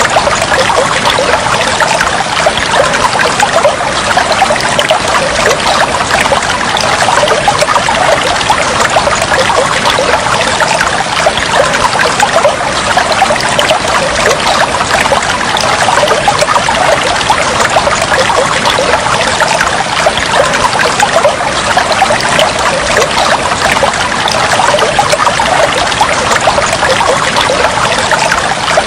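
Water flowing and trickling steadily, a dense, unbroken babble of small splashes.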